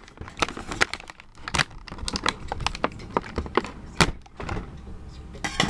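Plastic toy packaging being handled and opened: an irregular run of sharp crackles and clicks, with a louder snap about four seconds in and a quick cluster near the end.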